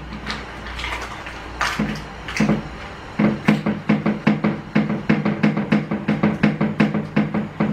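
Hands pressing and patting a sheet of pastry on its paper on a plastic table: quick repeated thumps, about four or five a second, with paper rustling. A short burst comes early, then a steady run from about three seconds in.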